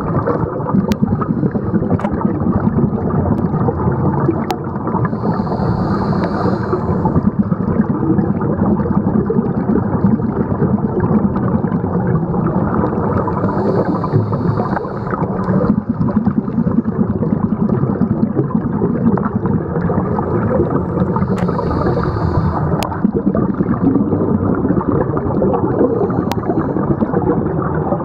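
Underwater sound of a scuba diver breathing through a regulator, heard through a camera housing: a steady low wash of bubbles and water noise, with a short hiss from the regulator about every eight seconds and a few faint clicks.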